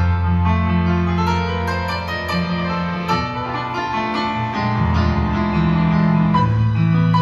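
Instrumental break on a stage keyboard between sung verses: sustained chords over a low bass line that moves every second or two.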